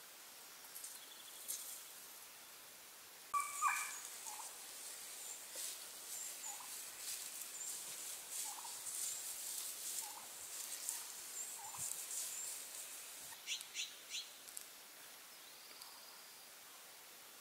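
Gould's wild turkey gobbling: one loud gobble about three seconds in, followed by fainter, scattered calls and a quick run of sharp, high notes near the end.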